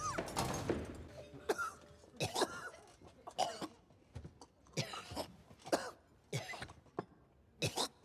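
A man coughing over and over, short coughs coming about once a second.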